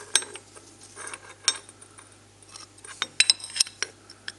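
Steel gate hinge and steel box-section tube clinking and knocking together as they are handled and fitted against each other. A few sharp metallic clicks with a short ring, bunched about three seconds in.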